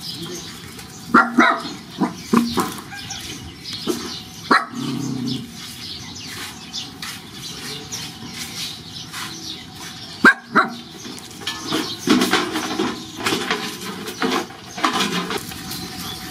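Puppies giving short, sharp yelps and squeaks now and then: a few close together about a second in, one near four and a half seconds, two around ten seconds, and a busier run near the end.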